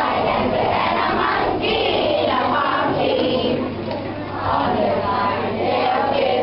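A group of schoolchildren singing together, with the noise of a crowd of children mixed in.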